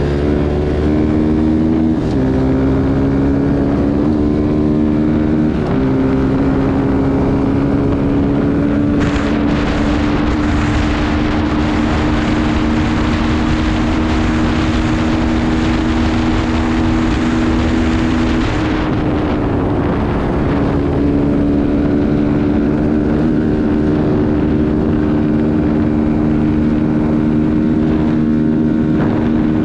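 Kuba Black Cat motorcycle engine running under way, heard from the rider's seat: its pitch climbs and drops back twice in the first six seconds, as with upshifts, then holds a steady drone. Wind rushes over the microphone from about nine seconds in to about nineteen, when the engine note drops, then the engine settles to a steady cruise.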